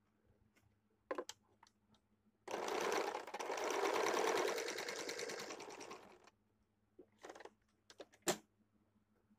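Electric sewing machine stitching in one run of about four seconds, starting about two and a half seconds in and slowing off near the end. A few sharp clicks come before and after it.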